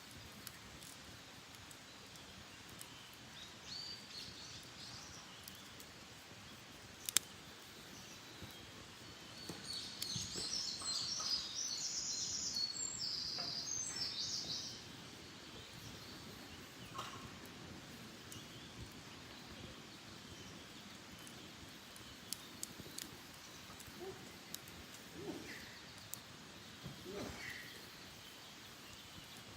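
Wild birds singing in woodland, with one long, high-pitched burst of song near the middle and a few shorter chirps around it. A single sharp click sounds about a quarter of the way in, and a few faint clicks come near the end.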